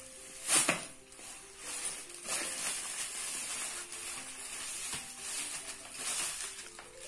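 Plastic and bubble-wrap packaging rustling and crinkling as a new tripod is pulled from its bag and unwrapped, with a sharp crinkle about half a second in. Quiet background music with a simple melody plays underneath.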